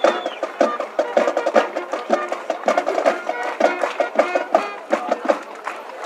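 Fanfare corps playing: fanfare trumpets holding pitched tones over rapid drum strokes. The playing ends just past five seconds in.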